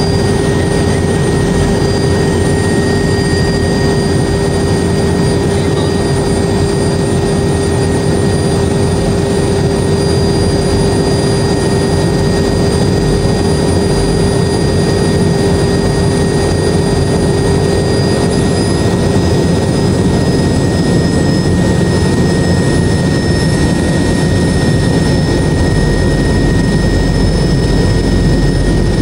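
Helicopter turbine engines and main rotor running, heard from inside the cabin: a loud, steady drone with high, steady whines. In the second half the highest whine rises slightly in pitch as power comes on and the helicopter lifts off the deck.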